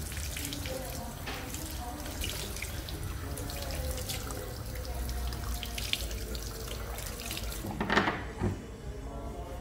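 Water from a handheld washbasin sprayer splashing onto a shaved scalp and running into the sink. About eight seconds in there are two loud knocks as the tap is turned off, and the water stops.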